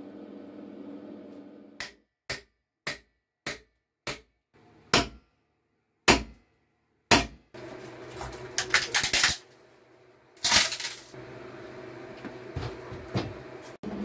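About eight short, sharp knocks spaced half a second to a second apart, each cut off abruptly. Then bursts of a corded electric tool grinding a block of apple wood.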